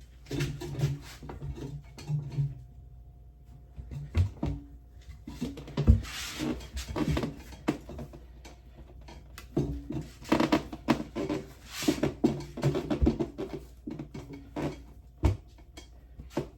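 Rubber off-road tire being worked onto an aluminum beadlock wheel by hand: irregular knocks and rubbing, with a few sharper thumps around 6, 12 and 15 seconds in.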